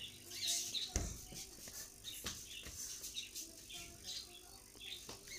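Faint, scattered bird chirps in the background, with a single low thump about a second in.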